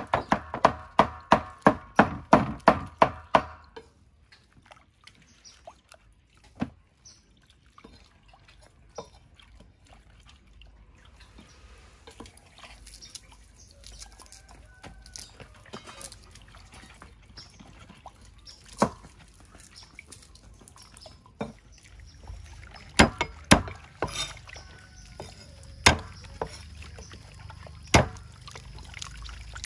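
A cleaver chopping on a wooden block, about four quick strikes a second, stopping after about three and a half seconds. Then water trickling and dripping as cooked napa cabbage leaves are squeezed out by hand, with a few single knife knocks on a cutting board in the last ten seconds.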